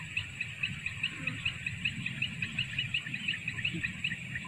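Lesser whistling ducks calling: a rapid, even run of short high whistled notes, about six a second.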